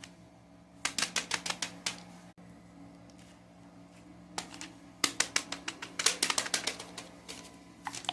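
Quick runs of sharp plastic clicks from fidget toys being clicked and handled: a burst of about ten clicks about a second in, then a longer, denser run from about five to seven seconds in.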